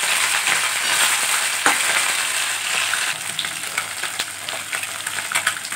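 Fish pieces frying in mustard oil in a kadai, a steady sizzle that breaks into scattered crackles in the second half. A metal spatula scrapes and taps the pan as the pieces are turned over.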